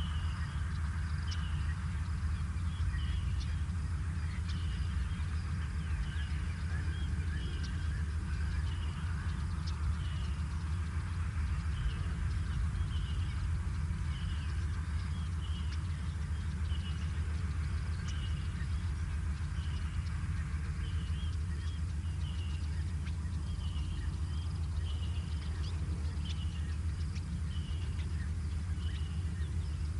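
Outdoor bush ambience: a bird repeats a short high note roughly once a second over a steady low rumble.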